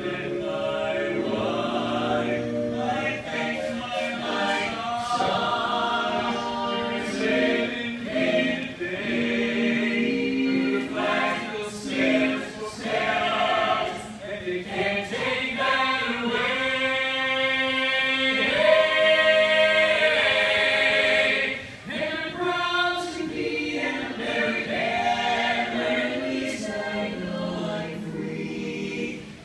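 Mixed-voice choir of men and women singing a patriotic song a cappella in harmony, with a short break between phrases about three-quarters of the way through.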